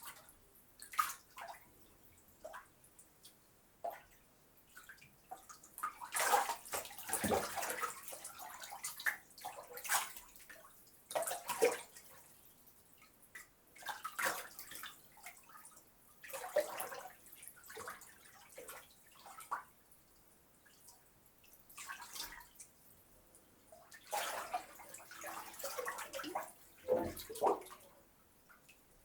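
Water sloshing and splashing in a filled bathtub as someone moves about in the bath. It comes in irregular bursts, with single drips falling in the quieter stretches between them.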